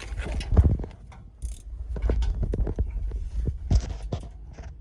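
Irregular knocks and clicks of hand tools on metal over a low rumble, as the exhaust bolts under the car are being worked loose.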